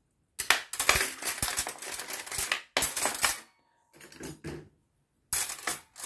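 Metal cutlery clinking and clattering as handfuls of forks and spoons are dropped into a drawer's plastic cutlery tray. It comes in a long run of rattling clinks, a short pause, a brief clink, then more clattering near the end.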